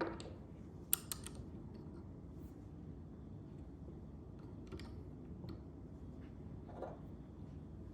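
Scattered clicks and taps of a Nodal Ninja panoramic head's parts being handled and fitted, with a quick cluster of sharp clicks about a second in and a few single ones later, over a steady low room hum.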